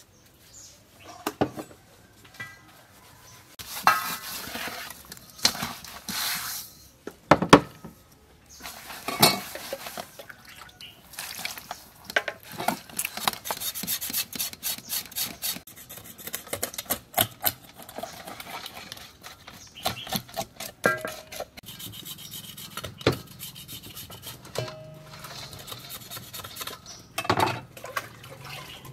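Pieces of a large fish being rubbed with salt in a stainless steel bowl: irregular knocks of the fish against the metal and scraping of flesh and salt grains on the bowl.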